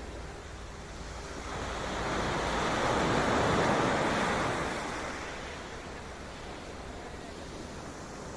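Sea waves breaking on the shore: one wave swells up about a second and a half in, crashes and washes out over a few seconds, over a steady low rumble of surf and wind on the microphone.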